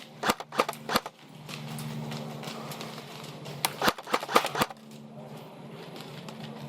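Airsoft rifle shots, sharp cracks in two quick strings: about four near the start and about five around four seconds in, over a steady low hum.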